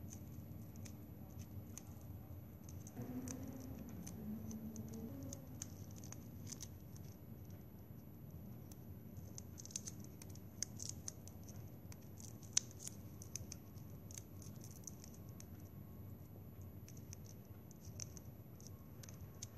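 Snipped plastic drinking straws being rolled up by hand into a stamen bundle, giving faint crinkling and small irregular clicks over a low steady hum.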